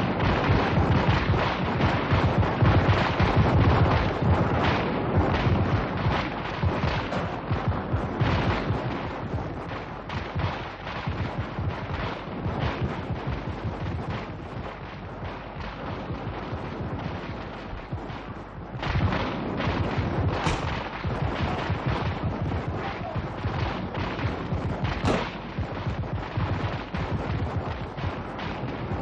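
Dense, continuous crackle of gunfire, many shots overlapping like a fusillade. It eases a little in the middle and grows louder again about two-thirds of the way through.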